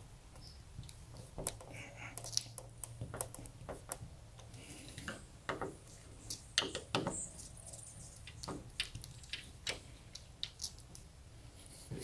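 Irregular light metallic clicks and rattles of sliding patio door latch hardware being handled and adjusted.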